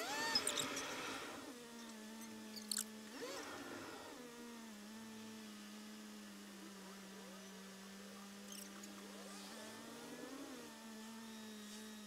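A car's engine idles with a steady low hum, heard from inside the cabin through a dashcam's microphone while the car sits stopped in traffic. Short squeaking glides come in the first seconds, and fainter ones come later.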